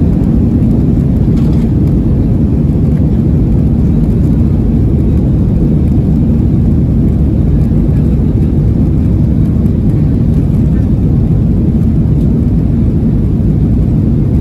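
Steady low rumble of a Boeing 737-800's CFM56-7B jet engines and rolling airframe, heard inside the cabin as the airliner taxis toward the runway before takeoff.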